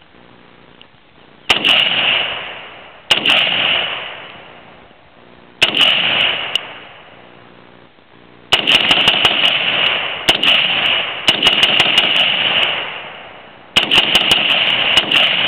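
AR-15 rifle firing: three single shots a couple of seconds apart, then rapid strings of shots as the rifle is bump-fired, each shot trailing off in a long echo.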